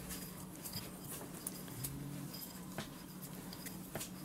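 Faint, scattered clicks and light rattling from a hand turning the height-adjustment knob of a small steel roller support stand, over a steady low hum.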